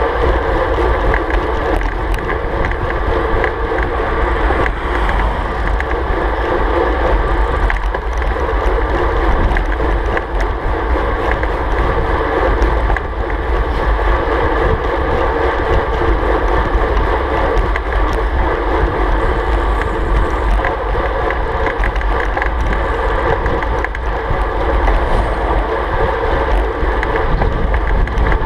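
Steady wind rush buffeting an action camera's microphone on a road bike at about 45–48 km/h, with a deep continuous rumble underneath.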